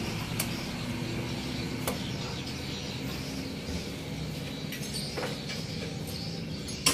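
A steady low mechanical hum, with a few faint clicks of metal brake caliper parts being handled, and one sharp knock at the very end.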